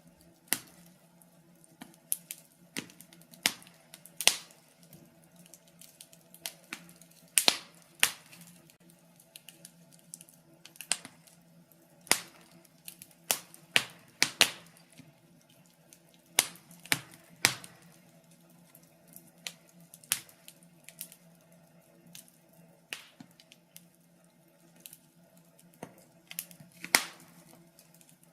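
Wood fire crackling: irregular sharp snaps and pops, several loud ones among many faint ones, over a faint steady low hum.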